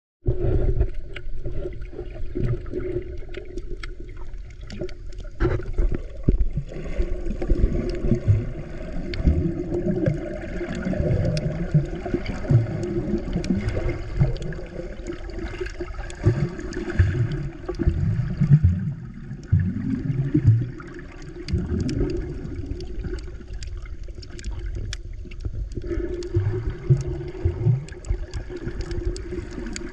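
Water movement heard with the microphone underwater as a snorkeler swims with fins: irregular low, muffled surges, with scattered faint ticks.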